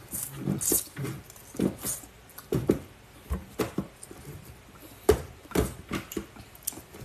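Close-up eating sounds: wet chewing and lip-smacking of a mouthful of food, in short irregular bursts about twice a second.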